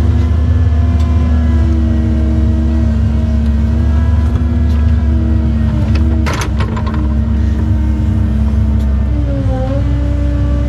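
Cat 309 mini excavator's diesel engine and hydraulics running under digging load, heard from inside the cab, with the pitch shifting as the controls are worked and dipping briefly near the end. A quick series of clanks sounds about six seconds in.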